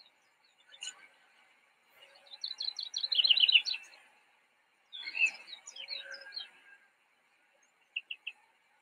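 Songbird singing: two phrases of quick, high repeated notes, one about two seconds in and one about five seconds in, then a few short chirps near the end.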